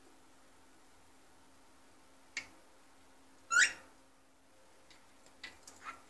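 Cockatiel calls: a brief chirp about two and a half seconds in, then a louder, rising squawk about a second later. Near the end comes a short run of light clicks and rattles from the window-blind slats as a cockatiel clambers and swings on them.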